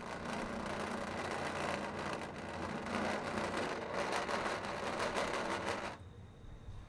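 Trumpet played with extended technique: a rough, rattling rush of breath noise with a low buzzing pitch under it in the first half, cutting off abruptly about six seconds in.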